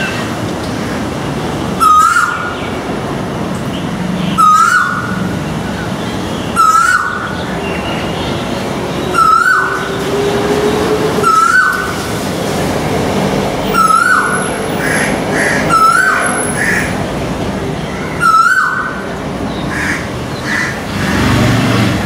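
Male Asian koel calling, one loud, short, rising note repeated eight times about every two and a half seconds, over steady road-traffic noise.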